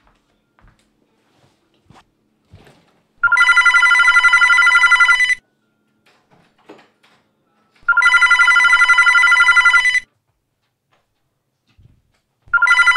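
Telephone ringing: two full rings of about two seconds each, with a fast trilling warble, and a third ring starting near the end.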